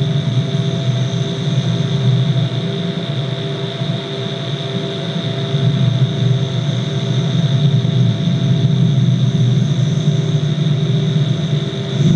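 Electronic drone: a dense, steady low rumble with sustained high tones above it and a fainter mid tone pulsing about once a second.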